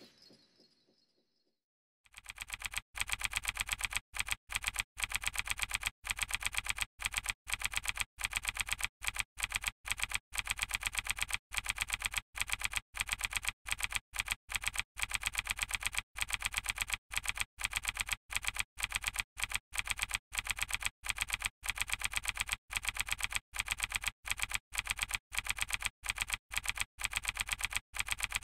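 Typewriter typing sound effect: rapid, even keystroke clicks in short runs separated by brief pauses. It starts about two seconds in and stops abruptly at the end.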